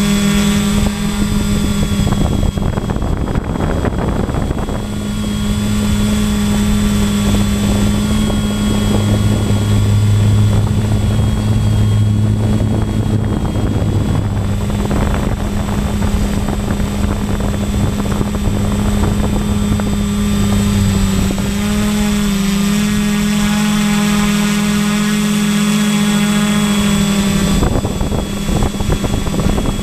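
Motor and propellers of a radio-controlled model aircraft carrying the camera, droning steadily at one pitch, heard from on board. The pitch shifts briefly about two-thirds of the way through, and wind rushes over the microphone now and then.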